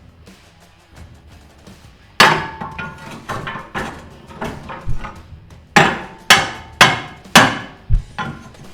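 Hammer blows on steel, knocking an old welded leaf-spring hanger loose from a truck frame: about a dozen sharp, ringing strikes starting about two seconds in, with the hardest ones coming in a quick run near the end.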